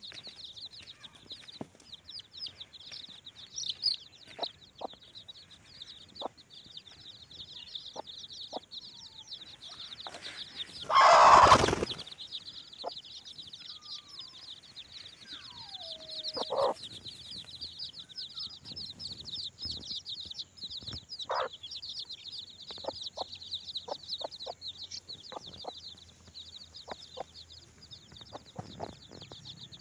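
A brood of chicks peeping rapidly and continuously while their mother hen gives short clucks, with one falling call a little past halfway. About eleven seconds in comes a loud burst of noise lasting about a second.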